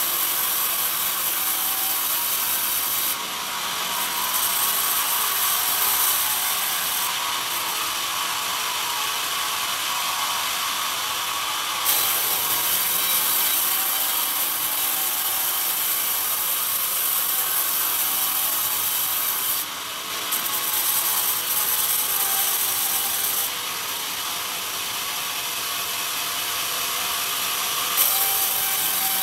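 Sawmill band saw cutting lengthwise through a pine cant: a loud, steady, high-pitched sawing noise with machinery running under it. Its highest hiss drops away and comes back several times.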